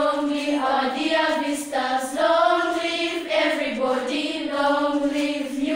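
A choir of school children singing a song together, many voices in unison.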